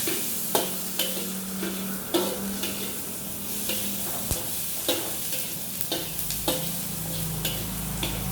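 Fried rice sizzling as it is stir-fried in a wok, with a spatula knocking and scraping against the pan about once or twice a second.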